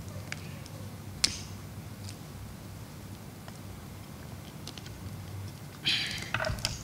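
Quiet room tone with a steady low hum, picked up by the lectern microphones. Small handling clicks at the lectern, one sharper about a second in, and a short rustle near the end.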